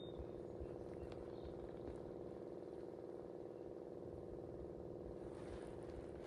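Faint, steady motor hum with a low rumble, unchanging throughout.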